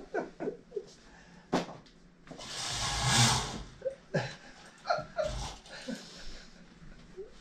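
Long fabric window curtains drawn shut, sliding along their rail with a swishing rush of about a second and a half, after a sharp click. Short faint breaths or chuckles come before and after it.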